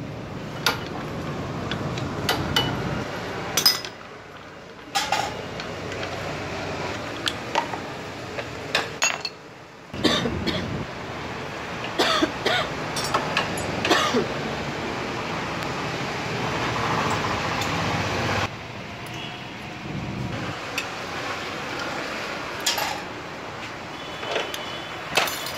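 Metal tools and clutch parts clinking and knocking while a Bajaj Pulsar 220's clutch is taken apart: a clutch-holding tool on the clutch, then the clutch plate pack pulled out of its housing. Many short sharp clinks, in stretches that break off abruptly.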